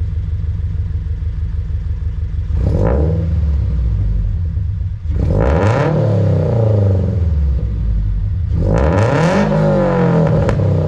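Subaru BRZ's flat-four boxer engine through an Invidia N1 exhaust with the silencer insert removed, idling and then revved three times: a short blip about two and a half seconds in, then two longer revs that rise and fall in pitch, about five and nine seconds in.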